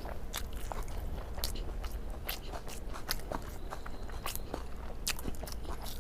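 Close-up eating sounds: wet chewing with irregular small clicks and crunches as a person eats egg curry, fish and rice, likely by hand.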